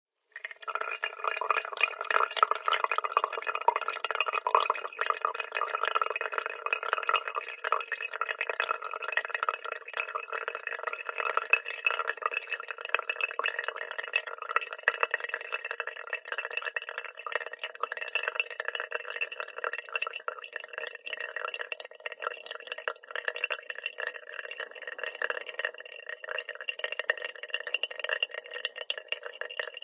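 Brewed coffee dripping and trickling into a glass coffee pot: a dense, continuous patter of drips ringing in the glass, a little louder in the first few seconds.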